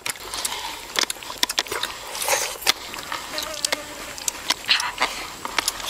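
Crispy roasted chicken being torn and chewed: irregular sharp crackles and clicks.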